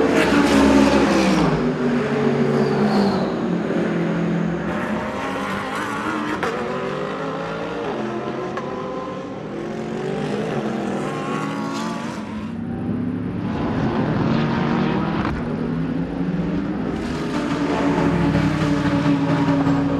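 GT race car engines revving as the cars pass, their pitch rising and falling with acceleration and braking, the sound swelling and fading several times.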